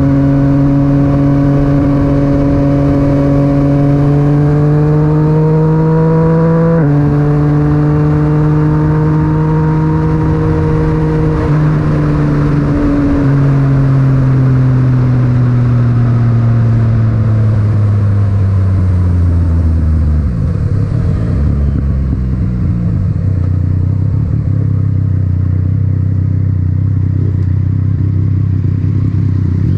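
Yamaha MT-09's three-cylinder engine through an Akrapovic titanium exhaust, heard from the rider's helmet with wind rush. Revs climb, drop sharply with a gear change about seven seconds in, hold, then fall away as the bike slows to a low steady run.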